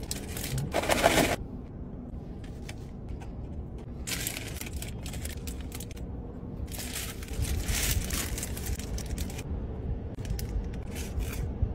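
Paper burger wrappers rustling and crinkling in three bursts as wrapped fried-chicken burgers are handled and pulled apart, the loudest in the first second, over a low steady hum.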